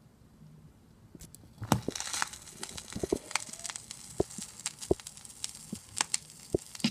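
Surface noise from a spinning 45 rpm vinyl single's lead-in groove under the turntable stylus: a steady hiss with scattered clicks and pops. It starts about two seconds in, before the music.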